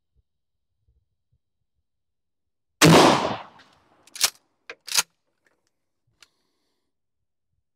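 Mossberg 590A1 pump-action shotgun firing a mini slug once, a sharp blast that rings out for nearly a second. Then the pump slide is racked back and forward, a quick run of sharp clicks, to chamber the next shell.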